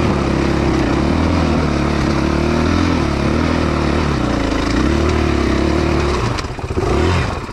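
2019 KTM 500 EXC-F's single-cylinder four-stroke engine pulling hard in second gear on a hill climb, its revs rising and falling. There is a brief rev near the end.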